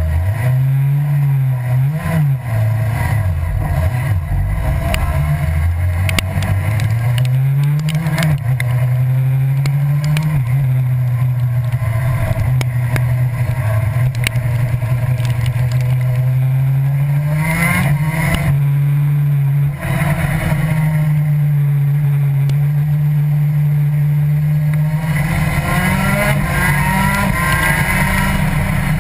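Racing kart's two-stroke engine heard onboard at speed, its pitch falling as the driver lifts for corners and climbing again as he accelerates out. It stays high and steady for long stretches on the straights.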